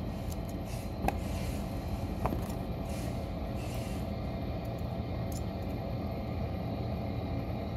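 Steady low hum of background noise, with two faint short clicks from hands working at the sewing machine's needle while threading it.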